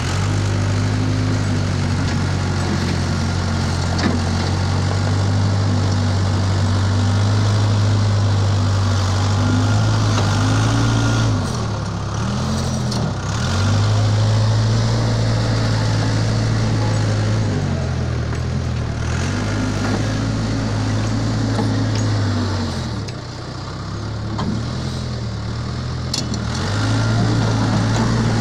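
Case 580 Super H backhoe loader's diesel engine running as the machine scoops, lifts and dumps dirt with its front bucket. Its note sags in pitch and recovers several times as the machine takes load.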